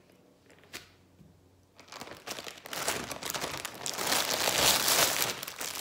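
Plastic packaging crinkling and rustling as a wrapped hair bundle is handled in its bag. It starts about two seconds in and grows louder, after a single faint click near the start.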